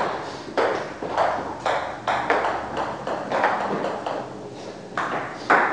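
Table tennis ball clicking sharply off paddles and the table in a rally, about one hit every half second, then a few scattered clicks, the loudest near the end.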